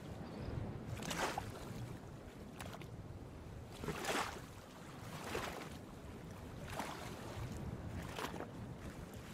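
Water lapping against a dock, a soft splash about every second and a half over a low steady rumble.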